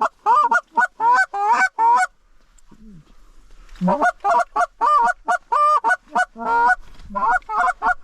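Goose honking: a rapid run of short, loud honks and clucks, about three to four a second, that breaks off about two seconds in and starts again a little before the halfway point.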